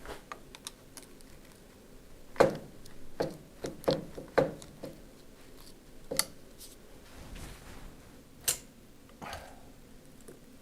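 Scattered sharp clicks and knocks of hand tools and loose parts being handled while a starter motor is taken apart, about eight separate taps with short gaps between them.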